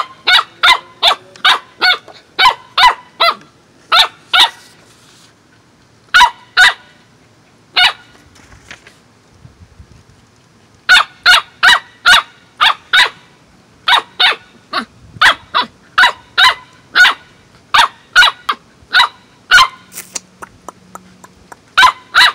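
Corgi puppy giving sharp, high-pitched play barks at about two or three a second, in bouts broken by short pauses.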